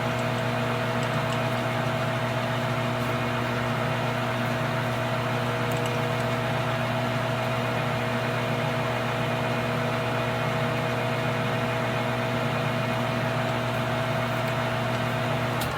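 Metal lathe running at a steady speed, a constant motor hum while the end of a screw is drilled with a number 25 tap drill; it shuts off right at the end.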